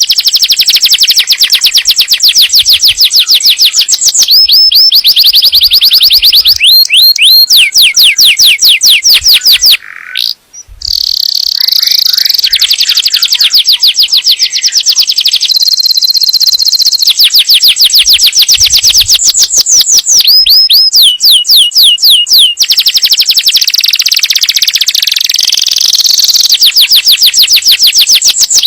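Domestic canary singing loud, rapid trills. Each phrase is a fast run of one repeated note, and a new trill type follows every few seconds, with a short break about ten seconds in.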